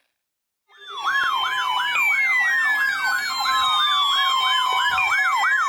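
Electronic siren yelping, its pitch sweeping up and down about three times a second, with a second siren tone sliding slowly downward and restarting near the end. It starts after a brief silence, about a second in.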